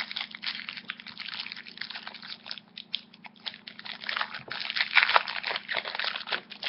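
Foil Yu-Gi-Oh booster pack wrapper being torn open and crinkled, a dense irregular crackle that grows louder past the middle.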